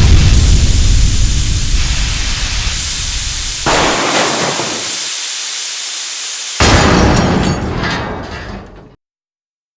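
Explosion and crash sound effects: a loud low rumble that slowly dies down, broken by two sudden hits about three and a half and six and a half seconds in, then fading out near the end.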